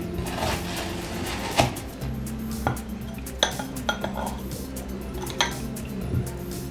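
Metal ice cream scoop scraping through firm frozen strawberry-banana ice cream and clinking against a plastic tub and a glass dessert goblet, with several sharp clinks, the loudest about one and a half seconds in.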